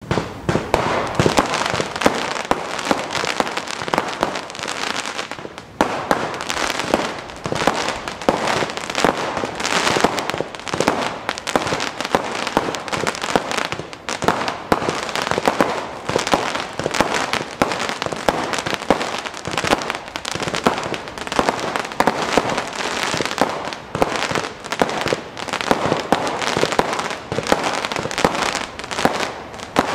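A 296-shot 1.3G firework cake firing in rapid, near-continuous succession: launch bangs and bursts with crackling stars, several shots a second. Brief lulls come about six and fourteen seconds in.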